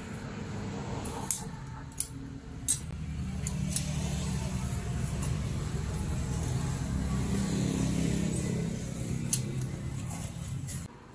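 Steady low engine-like hum running in the background, cutting off suddenly near the end. Over it come a few sharp clicks, scissor cuts through insole board, three in the first three seconds and one more near the end.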